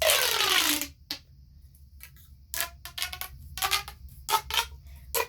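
Plastic ribbed pop tube being stretched and squashed: a long zipping stroke with a falling pitch in the first second, then a quick run of short zips from about halfway through.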